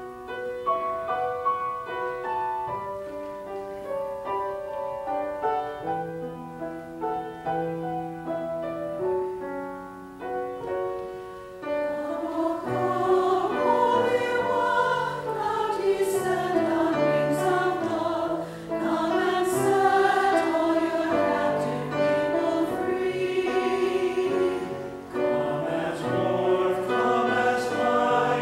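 Mixed church choir singing, swelling louder and fuller about twelve seconds in.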